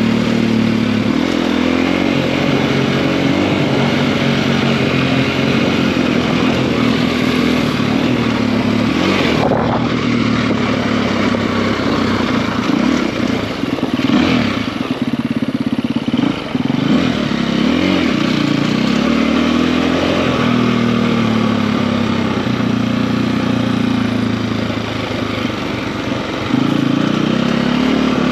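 KTM EXC-F enduro bike's single-cylinder four-stroke engine, with a 280 cc big-bore kit, running under way at an even pace. Near the middle the revs drop and climb again several times.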